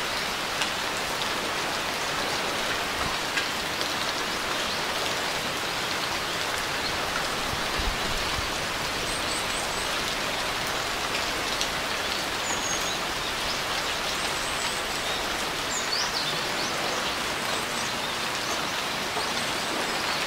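Steady rain falling, an even hiss of many drops on surfaces. A few faint, high bird chirps come through the rain in the second half.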